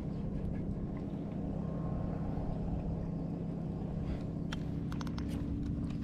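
Steady low hum of a boat motor running, with a few light clicks about four and a half to five and a half seconds in.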